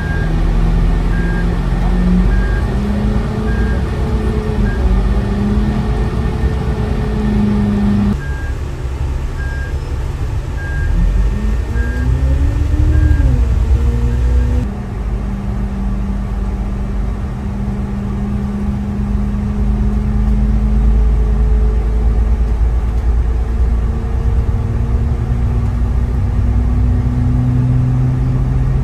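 Diesel transit bus engines across three cuts. First, a bus engine runs with an evenly repeated high beep, a bit over one a second. Next, an engine whine rises and falls as a bus pulls off. Last, a steady engine drone slowly rises in pitch as the vehicle accelerates up a highway ramp.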